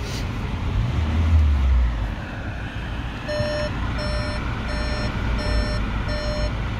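2020 VW Tiguan R-Line's parking distance warning beeping five times, evenly spaced at about one and a half beeps a second, as the parking camera view comes on. A low rumble swells about a second in, under a steady cabin hum.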